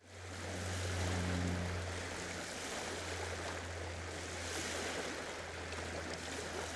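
Steady rushing water noise with a low, steady hum beneath it, fading in at the very start.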